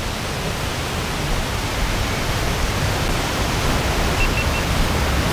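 Steady wind noise, gusts buffeting the microphone in a strong lakeside wind.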